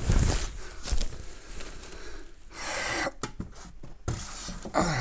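Packaging being handled: a plastic bag rustling and polystyrene foam inserts knocking and scraping in the cardboard box, with irregular thumps and a few sharp clicks. A short grunt near the end.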